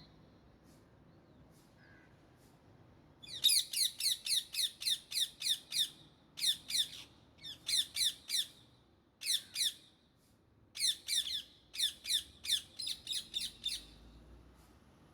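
Indian ringneck parakeet calling: rapid runs of shrill, repeated squawks, about four or five a second, in several bursts with short gaps. The calls begin about three seconds in.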